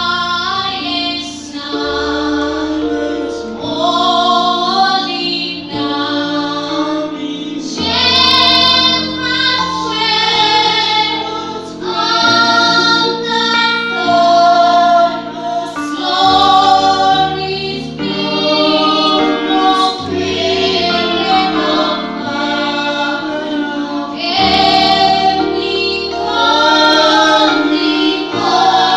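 Small mixed choir of women and a man singing a gospel hymn into microphones, in phrases of a few seconds each. Under the voices, electronic keyboard chords and bass notes are held steady, changing every couple of seconds.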